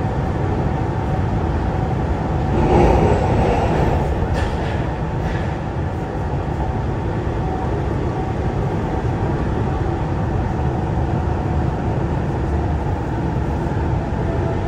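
Running noise inside a Siemens VAL 208 rubber-tyred automated metro car: a steady low rumble of tyres and running gear, with a brief louder surge of noise about three seconds in.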